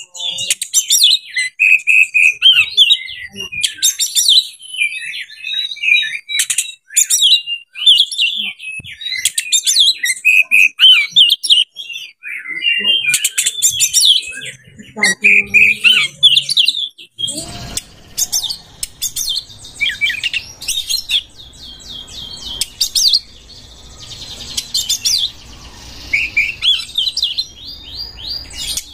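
Oriental magpie-robin (kacer) singing a long, varied song of loud whistles, trills and fast chattering phrases. A steady background hiss comes in a little past halfway.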